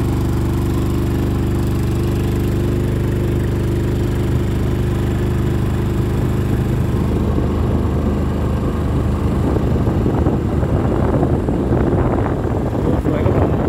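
Vehicle engine running steadily while under way. Wind noise on the microphone builds over it in the second half as the vehicle gathers speed.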